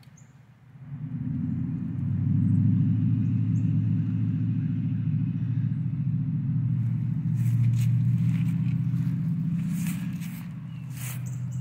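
Low, steady rumble of a motor vehicle's engine running, swelling in about a second in and holding.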